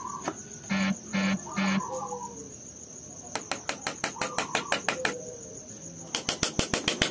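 Light, rapid hammer taps on a nail going into a wooden block, in two quick runs, over a steady high-pitched chirring of crickets. Near the start, a bird calls three times.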